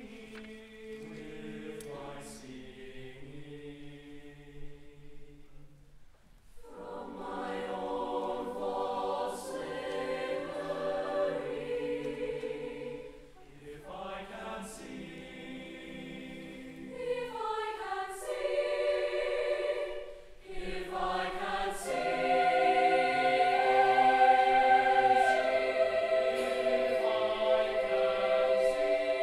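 Concert choir singing in long sustained phrases separated by short pauses, swelling louder in the final phrase.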